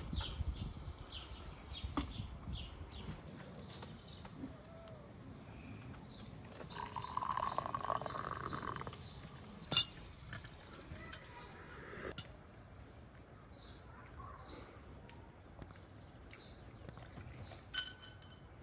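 Glass tea cups and saucers clinking against each other on the table every few seconds, the last clink near the end ringing the longest, with birds chirping throughout.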